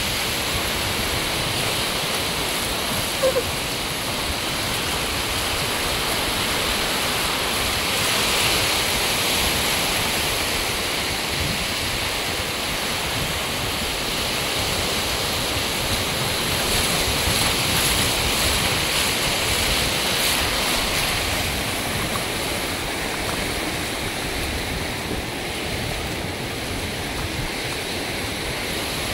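Sea surf washing up the beach in a steady rush, with a low wind rumble on the microphone. A short sharp sound stands out about three seconds in.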